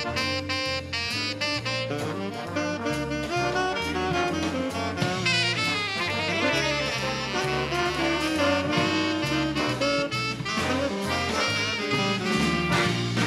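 Big band playing a swing jazz instrumental: the saxophone section carries the line over drum kit and a bass line stepping note by note. The trumpets and trombones come in loudly near the end.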